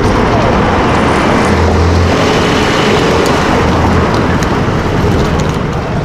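A car engine running steadily at low revs amid street traffic noise.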